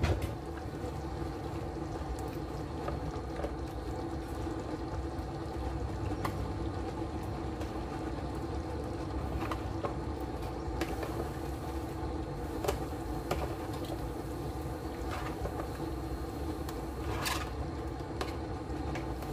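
A pot of kare-kare stew simmering on an induction cooktop: a steady low hum, with a few soft taps as eggplant slices are laid into the pot.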